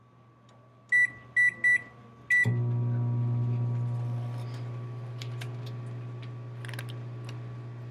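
Microwave oven keypad beeping three short times as a two-minute cook time is entered, then a fourth beep as the oven starts. The oven then runs with a steady hum, heating a bag of popcorn.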